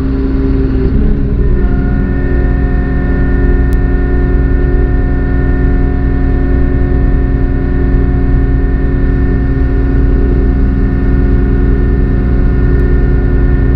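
JCB 150T skid steer's diesel engine running steadily, heard from inside its cab, with a low drone and a steady hum; its note changes about a second and a half in.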